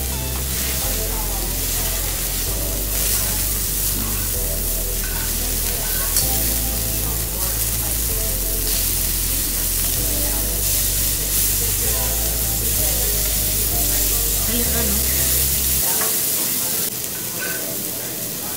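New York steaks sizzling on a hot teppanyaki steel griddle, a steady hiss, with music playing underneath whose bass drops out near the end.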